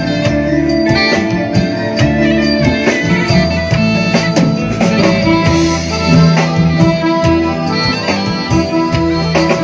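Instrumental band music for a nang talung shadow-puppet show: a melody over a steady rhythmic beat, with no voice.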